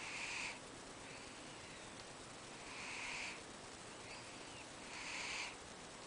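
A sleeping cat snoring: three short, hissy snoring breaths about two and a half seconds apart.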